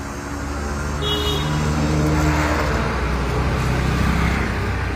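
A motor vehicle's engine running close by as a steady low hum, growing louder over the first couple of seconds and then holding, over traffic noise.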